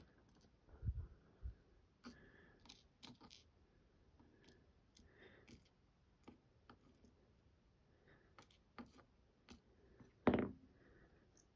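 Small metal lock parts being handled on a work surface: scattered light clicks and taps, a couple of soft low bumps about a second in, and one louder sharp clack near the end.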